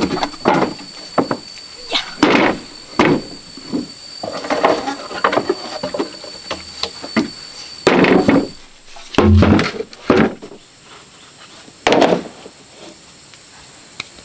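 Irregular knocks and bangs of hand work, a dozen or so sharp blows at uneven spacing, with a short pitched sound about nine seconds in.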